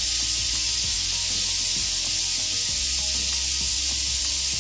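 Stovetop pressure cooker hissing steadily as steam escapes through its valve while the pot is still under pressure after half an hour on high heat, with a low steady hum underneath.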